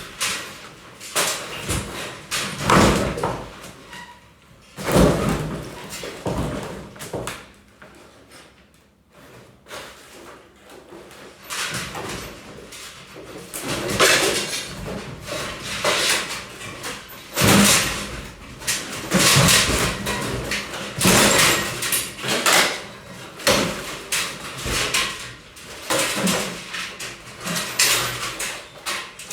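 Demolition of an interior wall: irregular bangs, knocks and scraping as the wall is worked loose and broken, with crashes of falling pieces.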